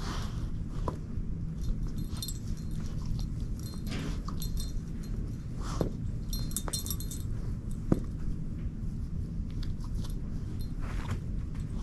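A dog chewing and gnawing on a plush Christmas stocking toy, with scattered soft crunches and clicks from her teeth. A brief metallic jingle comes about six to seven seconds in.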